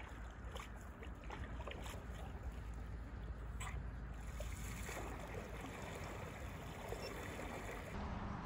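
Faint water sounds of stand-up paddle strokes on calm river water: soft dips and trickles over a steady outdoor hiss.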